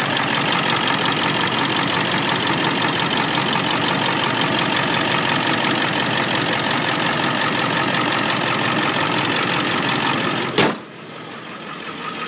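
Ford F550 truck engine idling steadily under the open hood. Near the end a sharp click comes and the engine sound drops away abruptly.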